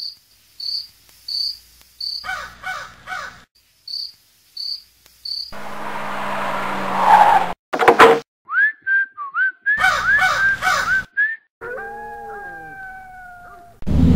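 Crickets chirping at an even pace, as a night-time sound effect. Halfway through, a swelling whoosh rises to a few sharp clicks. It is followed by a quick run of repeated gliding chirps, and then several gliding tones that slowly fall.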